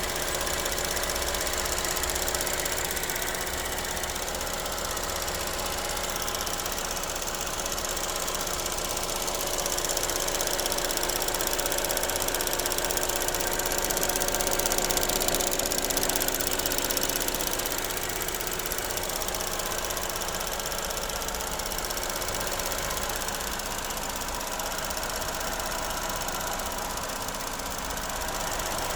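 Opel Corsa E running, with a steady fast rattle over the engine sound.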